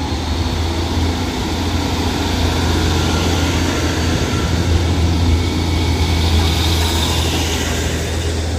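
Transport for Wales diesel multiple unit pulling past along the platform, its underfloor diesel engines giving a steady low drone over wheel and rail noise. It grows a little louder around the middle.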